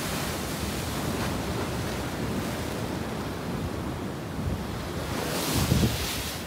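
Sea waves breaking and washing against rocky boulders, with wind rumbling on the microphone; a louder surge near the end.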